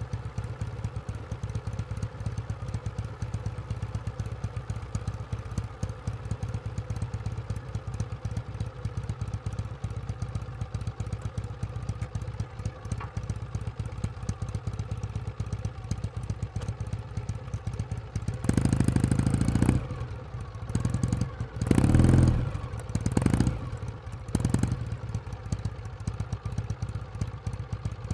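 Kawasaki W1 Special's vertical-twin engine idling with a steady, even pulse, then revved in three loud bursts about two-thirds of the way through, the middle one the longest and loudest.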